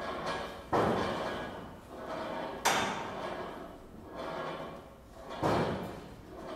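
Experimental percussion: three sharp struck sounds, about two to three seconds apart, each dying away over a second or so, with softer scraping swells in between.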